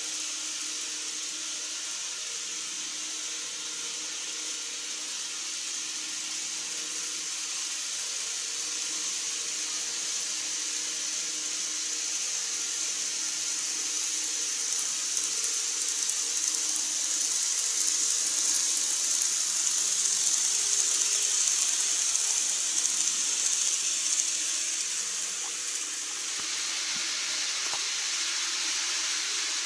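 A steady high hiss from N-scale model trains running on the layout's track. It grows louder through the middle and drops suddenly near the end.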